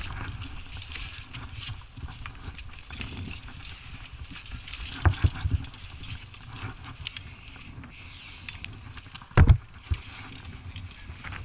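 Climbing rack of carabiners and gear clinking and knocking against granite as the climber moves up a crack, with scuffing of hands and shoes on the rock over a steady low rumble. A few sharp knocks come about five seconds in, and a louder double knock near the end.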